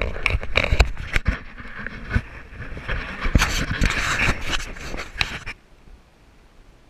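Handling noise: knocks, rubbing and scraping on the camera's microphone as the camera is moved about, stopping suddenly about five and a half seconds in.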